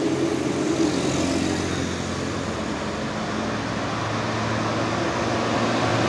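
Tour coach's diesel engine pulling hard up a steep hill, its low hum building as the coach draws close near the end, with a motorcycle passing close at the start.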